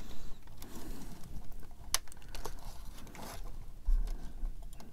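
Small clicks and taps of a plastic scale-model fairing panel being pressed and worked into place by hand, with one sharper click about two seconds in and a dull bump near the end.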